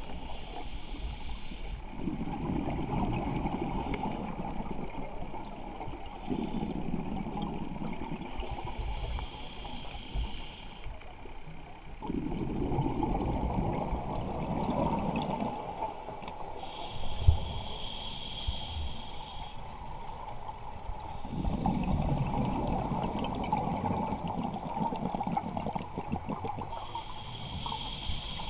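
Scuba diver breathing through a regulator underwater, in a slow repeating cycle. A hissing inhale through the regulator alternates with a bubbling burst of exhaled air.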